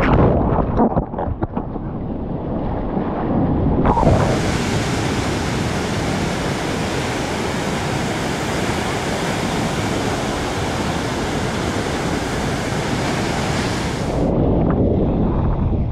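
Ocean surf and wind noise with no voices. Over the first couple of seconds the water noise is choppy, with sudden splashes. About four seconds in it changes to a steady, even hiss of breaking surf and wind, which gives way near the end to a duller gusting rumble.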